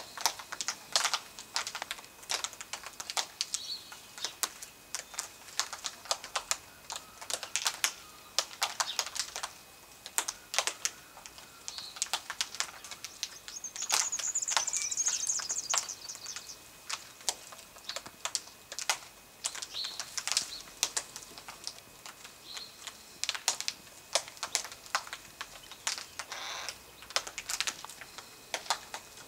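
Yellow-tailed black cockatoos feeding in a tree: a steady run of sharp, irregular clicks and snaps as their beaks crack seed pods and twigs. About halfway through, a high-pitched sound lasts about two seconds.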